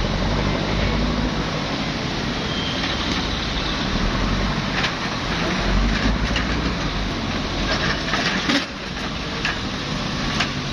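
Heavy earthmoving machinery's diesel engine running steadily under load, with several sharp metallic knocks and clanks.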